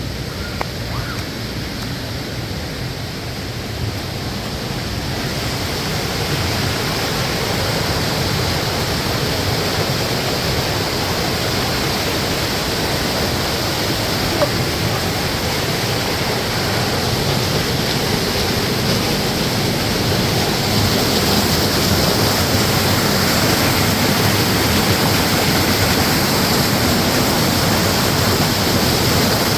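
Waterfall, the steady rush of falling water. It grows louder about five seconds in and again around twenty seconds in.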